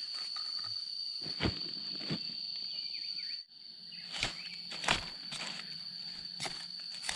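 A steady high-pitched insect drone, with scattered sharp snaps and crunches of someone moving through dry undergrowth. The sound cuts out briefly just past the middle.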